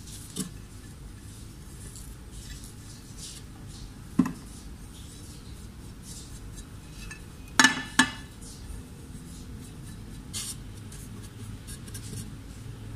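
A glass dish knocking and clinking against the food chopper's bowl as spices and green chillies are tipped in, with light handling noise between. Single sharp knocks come about 4 s in and a louder pair about 8 s in.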